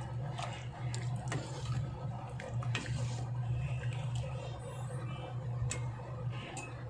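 Metal slotted spatula stirring a thick cream sauce in a stainless steel pan: soft squelching of the sauce with scattered short scrapes and clicks of metal on the pan, over a steady low hum.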